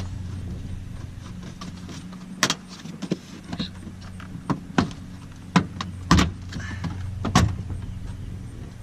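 Several sharp plastic clicks and knocks, spaced irregularly, as trim pieces and clips on a Nissan 370Z are pried loose and handled. A steady low hum sits underneath.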